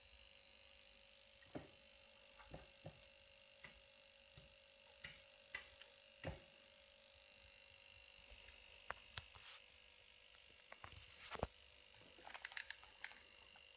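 Near silence: room tone with a faint steady hum and scattered small clicks and taps, the loudest about eleven seconds in.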